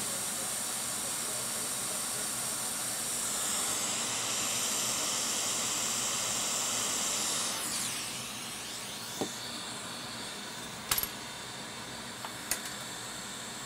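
Hot air rework station blowing a steady hiss of air to melt the solder under a corroded chip, then winding down about eight seconds in as the chip comes off. A few light clicks follow.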